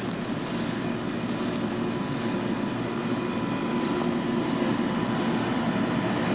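A steady mechanical drone that slowly grows louder.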